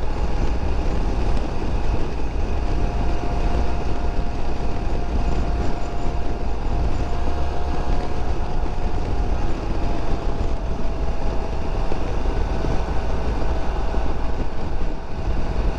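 Suzuki Burgman 650 maxi-scooter at speed on the open road, with heavy wind rush buffeting the helmet microphone over the running parallel-twin engine. A steady whine runs underneath and drops slightly in pitch about ten seconds in.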